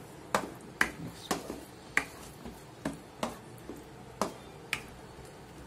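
A plastic spoon knocks and scrapes against a pan while stirring vegetables into a thick white sauce. It makes about eight sharp clicks at uneven intervals, roughly half a second apart.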